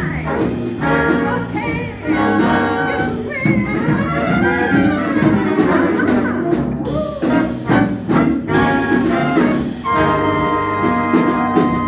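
Swing band playing, its brass section of trumpets and trombones carrying the tune, settling onto a long held chord about ten seconds in.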